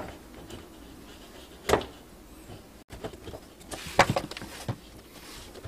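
Plastic drain fittings being handled and pushed together: a corrugated plastic overflow hose fitted onto a sink drain's side outlet by gloved hands, giving scattered light clicks and knocks, the sharpest about a second and a half in and again about four seconds in.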